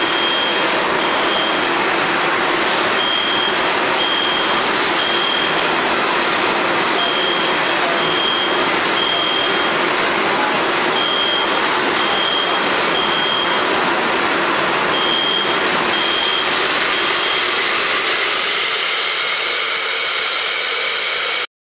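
Carbon dioxide fire suppression system discharging with a loud, steady hiss, while an alarm beeps over it in repeating groups of three, the temporal-three evacuation pattern. Near the end the hiss thins and changes character as the discharge tails off.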